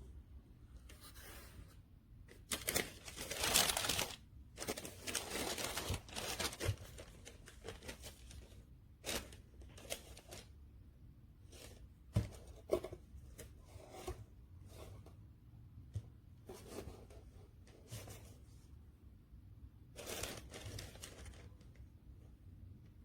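Irregular rustling, scraping and tearing noises from something being handled, with scattered sharp knocks and clicks; the longest, loudest rustle comes about three seconds in.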